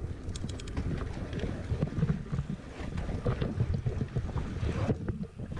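Wind buffeting an action camera's microphone while a mountain bike rides a dirt jump trail, under an uneven rumble of tyres on dirt.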